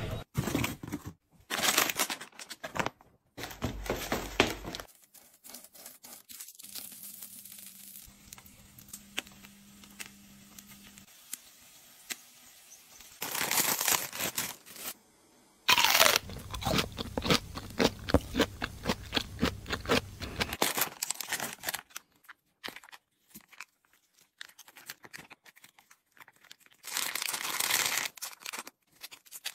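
Plastic food packets crinkling and being torn open in several separate bursts, with rice noodles and dried toppings tipped from their bags into a pot.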